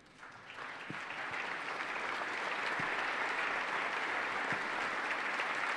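A large crowd applauding in a big hall, building up over the first second or two and then holding steady.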